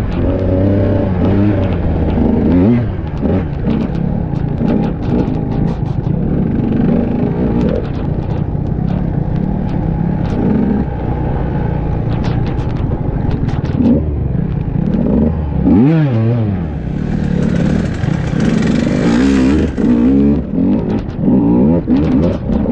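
Enduro dirt bike engine heard from on the bike, revving up and down as the throttle opens and closes, with one sharp rev rising and falling about two-thirds of the way through. A rushing hiss joins it for a few seconds after that.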